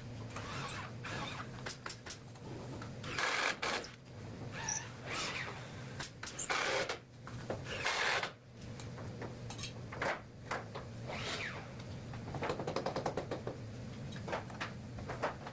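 Scattered knocks and clatter of carpentry work on a timber structure, over a steady low hum, with a quick rattling run of taps about twelve seconds in.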